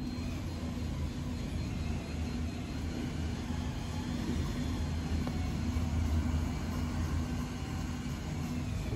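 A steady low mechanical rumble with a hum, unchanging throughout.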